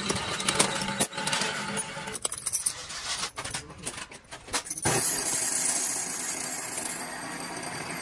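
Metalworking in a lock-and-key workshop: a quick run of sharp metallic clinks and taps on key and lock parts. From about five seconds in, a steady machine whir takes over.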